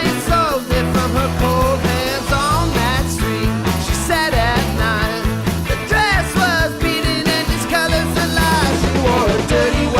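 Rock music: a rock song with a bending lead melody over steady bass and drums.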